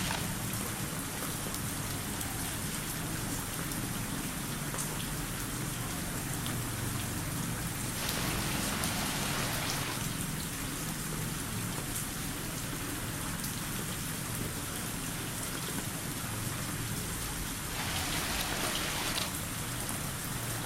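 Steady heavy rain pouring down and pattering on surfaces, swelling louder twice, once about eight seconds in and again near the end.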